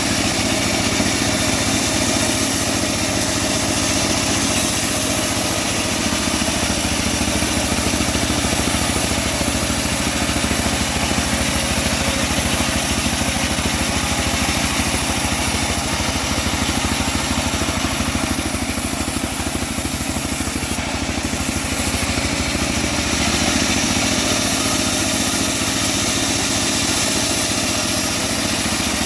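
Engine of a homemade bandsaw sawmill running steadily under way.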